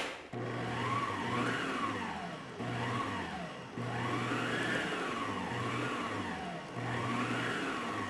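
Arno Planetária Deluxe stand mixer starting with a click and running, its whisk beating coffee into honey-cake batter. The motor's whine rises and falls in pitch over and over, every second or two.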